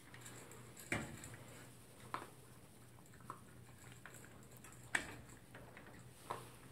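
About five scattered sharp clicks and knocks over a faint hum, the loudest about a second in and about five seconds in: a toy poodle eating dry food from a plastic bowl in a wire crate, with the crate door's latch handled in the second half.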